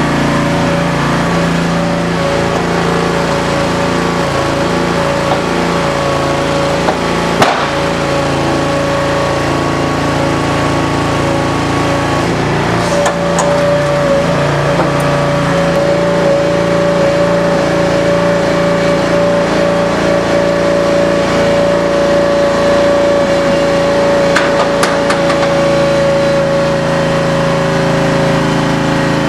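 16-hp V-twin Briggs & Stratton gas engine running steadily, driving the tire baler's hydraulic pump, with a steady whine that grows louder about twelve seconds in. A single sharp knock about seven seconds in.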